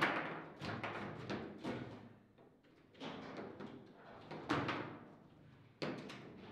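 Foosball table in play: a string of sharp knocks and clacks from the ball being struck by the players' figures and from the rods jarring in the table. The loudest hit comes right at the start, another strong one a little before the end, with lighter knocks in between.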